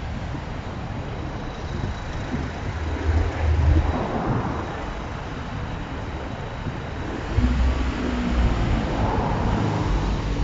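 Outdoor wind noise rumbling on the microphone, with road traffic going by; the rumble swells in gusts about three seconds in and again from about seven seconds.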